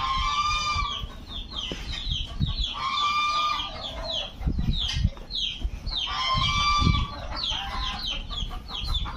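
Farm poultry calling: a loud held call comes three times, about three seconds apart, over many short high calls that fall in pitch, with a few low thumps in between.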